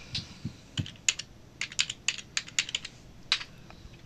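Computer keyboard and mouse clicking: a dozen or so sharp, uneven clicks, bunched quickly in the middle.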